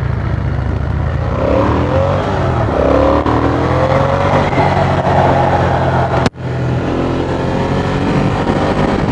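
Ducati Monster 620's air-cooled V-twin engine pulling away and accelerating, its pitch rising in steps through the gears, with wind rush; the sound drops out for an instant about six seconds in.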